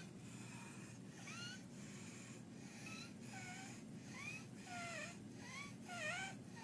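Quick, noisy breathing of a child with croup, a breath roughly every half second, each with a high-pitched squeaking tone that bends in pitch: stridor from the narrowed upper airway.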